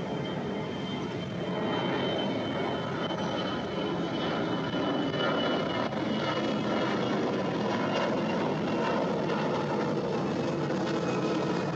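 Jet airliner's engines running loud and steady, swelling about two seconds in, with a thin high whine that slowly drops in pitch.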